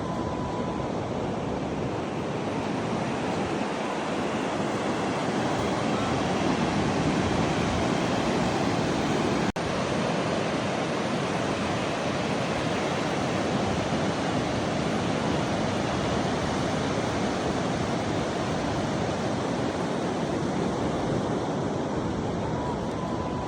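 Pacific Ocean surf, a steady, even rush of breaking waves. The sound briefly drops out about ten seconds in.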